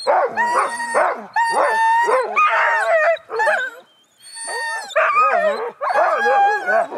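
Several Siberian huskies yipping, whining and barking together in overlapping high calls, with a brief lull about four seconds in.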